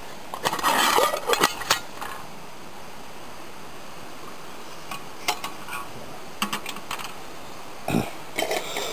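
Metal cook pot and its wire folding handles clinking and knocking against a Sterno camp stove as the pot is handled and set on it: a cluster of sharp clicks and knocks in the first two seconds, a few light clicks between five and seven seconds in, and a knock near the end.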